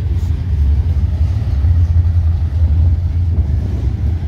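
Wind buffeting the camera microphone: a loud, uneven low rumble that flutters throughout.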